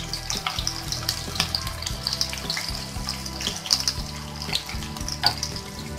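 Potato patties (aloo tikki) deep-frying in hot oil in a kadai: a steady sizzle with many irregular crackling pops.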